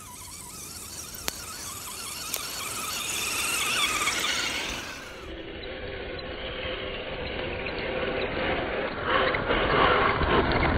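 Axial Wraith radio-controlled rock racer's electric motor and gears whining, the pitch wavering up and down with the throttle as it climbs a gravel trail, with two sharp ticks in the first few seconds. The whine drops lower midway and the sound grows louder near the end as the truck drives up close, tyres working over loose rock.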